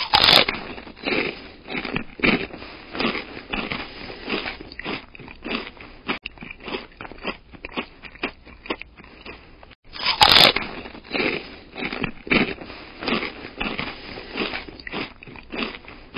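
Irregular crunching and crackling close to the microphone, with louder bursts right at the start and about ten seconds in.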